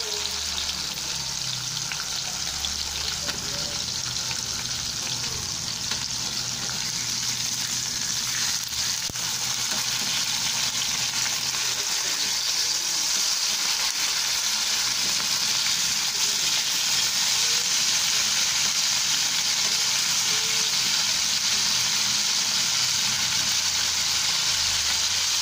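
Pork steak slices sizzling in hot oil in a frying pan, a steady hiss that grows a little louder about halfway through.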